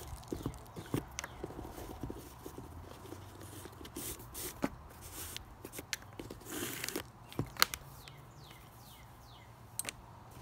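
Bootlace being pulled out through the eyelets of a Keen Targhee III hiking boot, with soft scraping rustles and scattered light clicks and taps as the boot is handled on a plastic workbench. A longer scraping rustle comes about six and a half seconds in.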